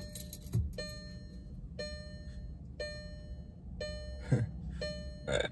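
Car warning chime repeating about once a second, the same short bright tone each time, over a low steady hum in the cabin. There are a couple of soft thumps near the end.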